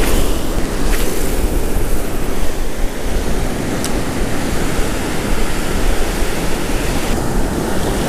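Ocean surf washing on a beach, a steady rush of waves, with wind buffeting the microphone. Two faint ticks come about a second and about four seconds in.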